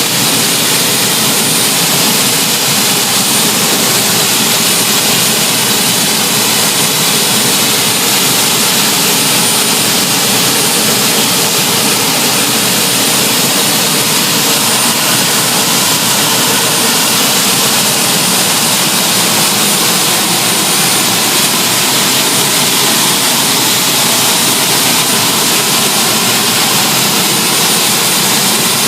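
Gas-turbine engines of a turbine-powered pulling tractor running steadily while warming up: a loud, even jet-like rush with a thin, high steady whine.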